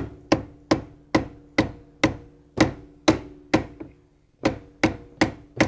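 Repeated hammer blows, about two a second, on steel, using a pry bar to force a splined coupling down onto its shaft. Each strike gives a short metallic ring. There is a brief pause a little past the middle.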